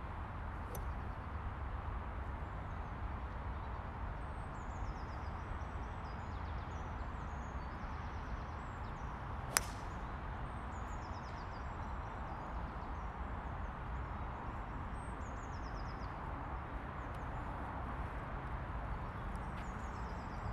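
A golf driver strikes a ball off the tee: one sharp crack about halfway through. Small birds chirp in short high runs before and after it, over a steady low background rumble.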